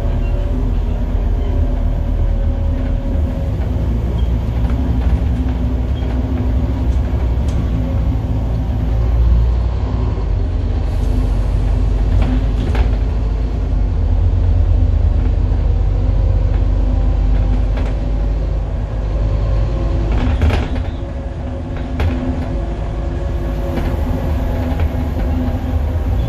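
On-board sound of a Scania N230UD double-decker bus on the move, its engine freshly rebuilt: the diesel engine's steady drone over deep road rumble. The engine note changes pitch a couple of times as the bus changes speed, and a few sharp clicks sound about halfway through and near the end.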